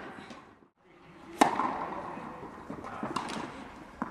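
Tennis ball struck with a racket, a sharp pop that echoes around an indoor tennis hall, about a second and a half in, followed by lighter knocks of ball on racket or court later on. The sound drops out briefly just before the first hit.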